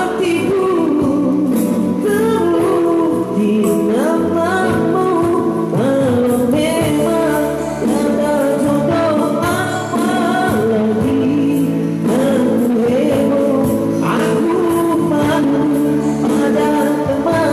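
Music: a man singing an old Indonesian song over instrumental accompaniment.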